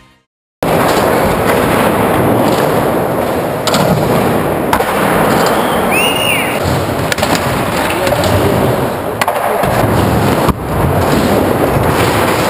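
Skateboard wheels rolling loudly and continuously over a smooth skatepark floor and ramps, with several sharp clacks of the board along the way and a brief high squeak about six seconds in.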